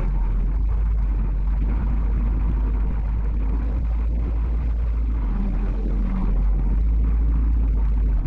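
Tractor engine running steadily under way, a deep, even rumble heard from inside the cab while the loader carries a log.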